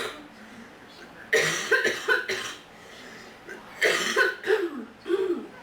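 A person coughing in two fits, each a quick run of about four coughs: the first starts about a second in, the second near the middle.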